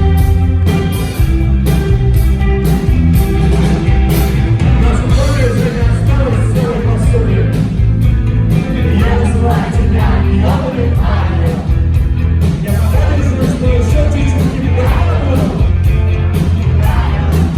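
Loud rock band playing with drums and guitar; a singing voice comes in about five seconds in and carries on over the band.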